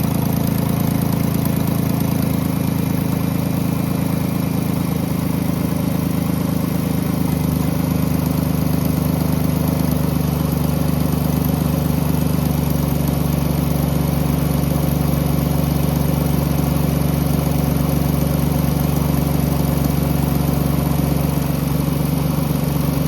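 A 2010 Jeep Grand Cherokee's 3.7-litre V6 running steadily at idle, with an unexplained noise that seems to come from the intake, mainly on the driver's side. The owner has ruled out the valves and the PCV valve, and smoke tests found no intake or exhaust leaks.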